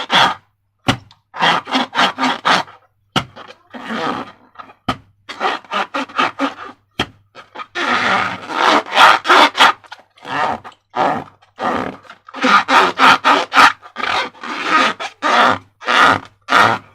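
Slime squelching as it is squeezed and worked by hand: irregular clusters of quick wet squishes and small air pops.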